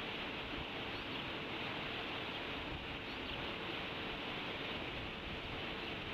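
Steady hiss of outdoor background noise at a bald eagle nest, with a faint steady hum underneath.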